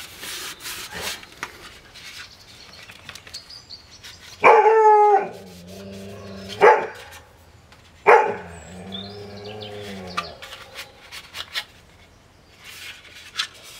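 A dog barks three times, about four and a half, six and a half and eight seconds in. The first and last barks trail into a long, lower note.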